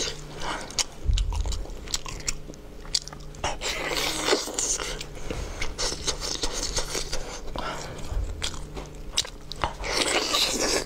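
Close-up eating sounds of a person tearing and biting into braised lamb leg and chewing it, with many sharp sticky clicks. Two dull low thumps come about a second in and again after eight seconds.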